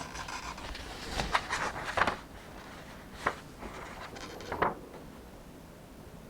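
Paper pages of a book being handled and turned: rustling with several crisp flicks, dying away about five seconds in.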